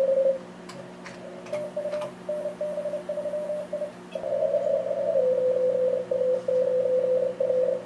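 Morse code (CW) signals from an Elecraft K3 transceiver during a contest: a fainter keyed tone for the first few seconds, then a louder one at a slightly different pitch from about four seconds in. A steady low hum runs underneath.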